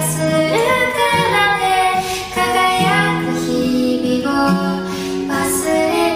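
A song: a high voice singing Japanese lyrics in a gently moving melody over a soft instrumental backing with sustained low notes.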